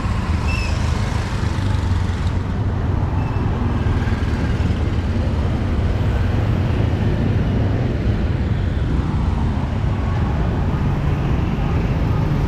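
Steady street traffic noise with a heavy low rumble.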